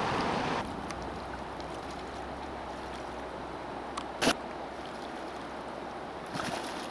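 River water rushing steadily, with one sharp click about four seconds in.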